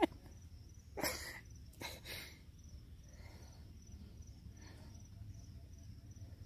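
Insects chirping steadily, a faint high, rapidly pulsing trill, with two short bursts of rustling noise about one and two seconds in.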